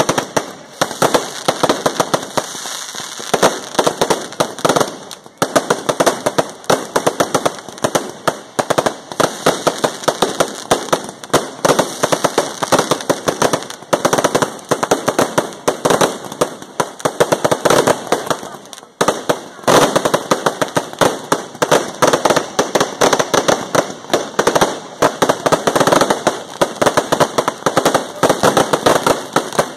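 Fireworks and firecrackers going off nonstop in a dense, rapid crackle of bangs and pops, with a brief lull about two-thirds of the way through.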